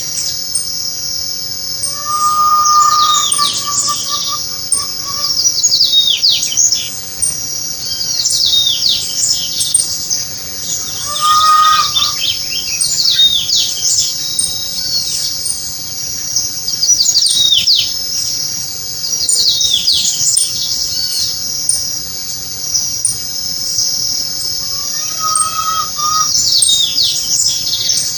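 Songbirds singing in repeated bouts of quick, falling high notes, over a steady high-pitched drone of insects. Three times a lower, held whistle-like call sounds briefly.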